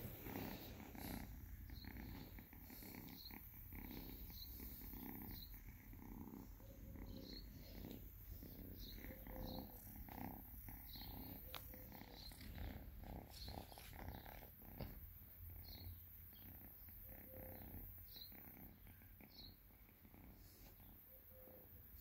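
Two-month-old kitten purring faintly and steadily while being stroked, a sign of contentment.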